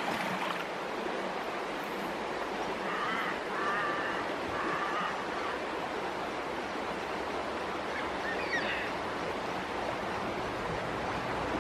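Steady, even rush of a shallow river flowing over rocks, with a few short high-pitched calls about three to five seconds in and again a little later.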